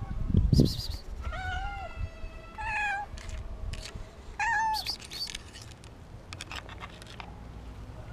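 Young tabby-and-white street cat meowing: a long drawn-out meow in the first few seconds and a shorter one near the middle. The uploader takes it to be hungry and afraid. A couple of dull thumps sound near the start.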